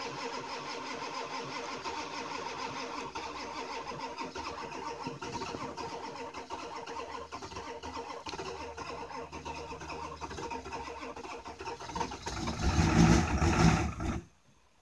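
Ford 7.3 L Power Stroke V8 turbodiesel, straight-piped through twin 8-inch exhaust stacks, running steadily just after a cold start at −28. It gets louder for about two seconds near the end, then the sound cuts off suddenly.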